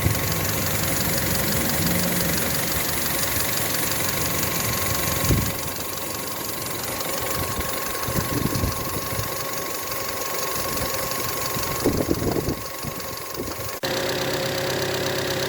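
Skoda Rapid engine idling with its alternator drive belt whistling, a steady high tone over the engine noise. The sound is typical of a slack belt. The sound changes abruptly near the end.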